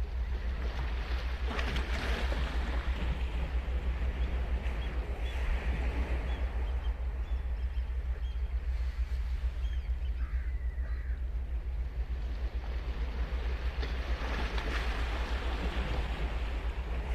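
Ocean surf: waves breaking and washing in, with surges about two seconds in and again near the end, over a steady low rumble.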